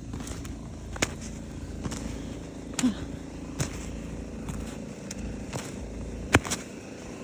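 Snow shovel working hard-packed snow: a steady scraping rumble broken by a few sharp knocks, the loudest about six and a half seconds in.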